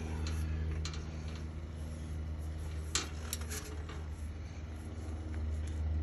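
A few light metallic clinks and taps as an aluminum fence section's rail and pickets are knocked into place at a post, the sharpest about three seconds in. Under them a steady low engine hum.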